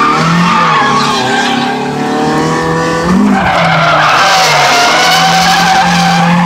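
Mazda Miata's four-cylinder engine running at high revs through a drift, heard from inside the cabin, with the tyres sliding and skidding on the asphalt, louder from about halfway in.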